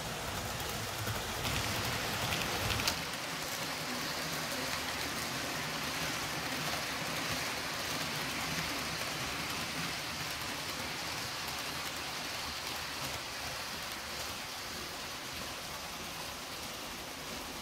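H0-scale model ICE trains running on the layout: a steady rushing hiss of wheels and motors on the track. A low rumble underneath drops away about three seconds in.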